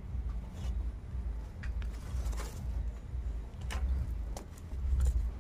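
Wood fire in a clay mud stove crackling as sticks of firewood are pushed in, with a few sharp clicks over a steady low rumble.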